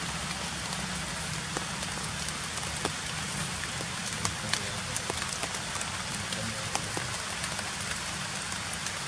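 Steady rain falling on leaves: an even hiss with many small, sharp drop ticks scattered through it.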